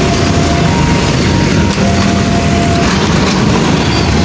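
Loud, steady vehicle noise with no break, carrying a couple of faint held tones partway through.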